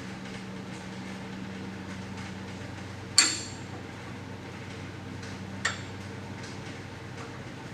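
Two sharp metallic clinks of a steel hand tool striking metal, about two and a half seconds apart, the first louder with a brief high ring, over a steady low hum.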